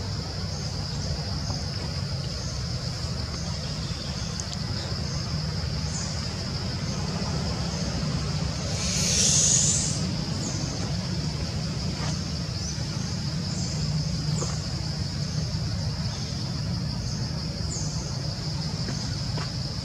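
Outdoor forest ambience: a steady high-pitched insect drone over a constant low rumble, with small chirps above it and a brief louder hiss that swells and fades about nine seconds in.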